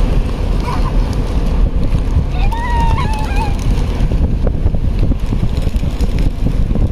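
Steady wind rumble buffeting the microphone on an open square among a feeding pigeon flock. About two and a half seconds in, a brief high voice calls out with a wavering pitch.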